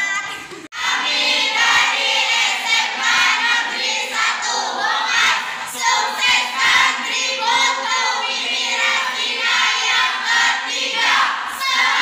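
A group of teenagers' voices in unison, chanting and singing together, with a brief break less than a second in.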